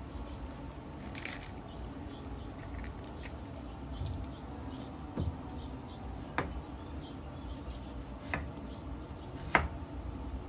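Papery crackle of dry onion skin being peeled, then a chef's knife slicing through an onion on a wooden cutting board, the blade knocking the board four times in the second half, the last knock the loudest. A steady low hum sits behind it all.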